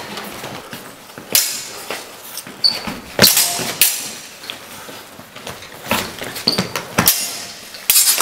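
Steel training longswords clashing and knocking in a fencing bout, mixed with footsteps on a wooden floor: sharp clacks and clanks at uneven intervals, the loudest cluster near the end.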